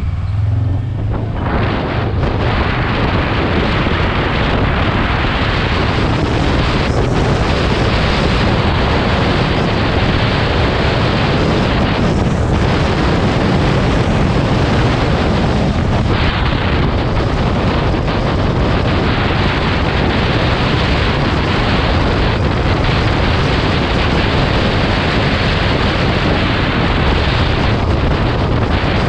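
Loud, steady wind rushing over the microphone of a moving vehicle, with its engine and road noise running low underneath. It builds over the first second or two and then holds steady.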